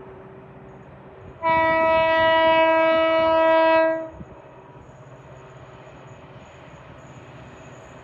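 Locomotive horn sounding one steady blast of about two and a half seconds, starting about a second and a half in, over a faint rumble of the passing train.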